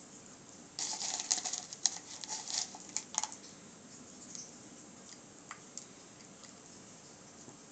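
Small chunks of leftover candle wax dropped into a small glass votive holder, clicking and rattling against the glass. There is a quick cluster of clicks for about two and a half seconds, then a few scattered ticks.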